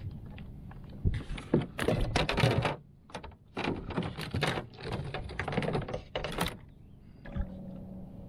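Hard plastic gear clattering and clicking on a kayak in dense quick bursts for several seconds, as the plastic fish measuring board is handled and put away; the clatter stops about a second before the end.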